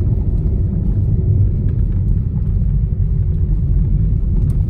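A car driving steadily along a paved road: a constant low rumble of tyres and engine.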